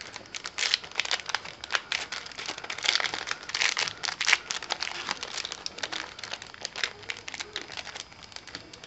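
Yu-Gi-Oh! Turbo Pack booster pack wrapper crinkling and being torn at as it is worked open: a dense, uneven run of crackling rustles, the pack being tricky to open.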